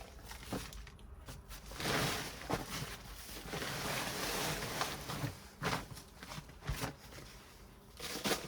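Hands digging and rummaging through potting mix in a potato grow bag: a few seconds of steady rustling and scraping, then several short scuffs.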